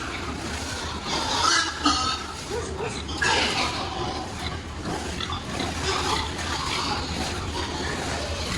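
Pigs grunting and squealing in a barn, loudest about one and a half seconds in and again about three seconds in, over a steady low hum.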